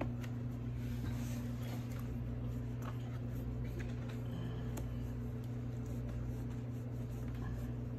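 Terry-cloth towel rustling and rubbing over a newborn puppy being stimulated to clear fluid from its lungs and start breathing, with scattered faint clicks, over a steady low hum.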